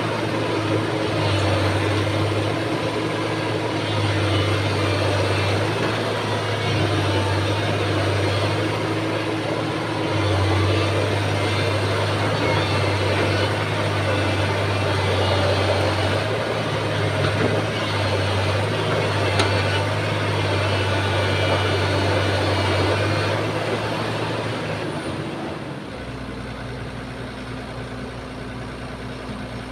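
Heavy diesel machinery running and working, its engine note rising and falling every few seconds as it takes load. Near the end it drops to a quieter, steady drone.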